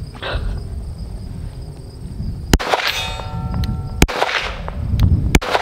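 Smith & Wesson M&P 22 Magnum pistol firing .22 WMR rounds: three or four sharp shots starting about two and a half seconds in. Each shot is followed by ringing steel.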